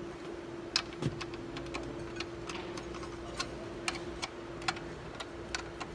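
Light, irregular taps on a tom drumhead near the rim while the drum is tuned by ear, the centre of the head muted by a pressed hand; short dry ticks, a few a second.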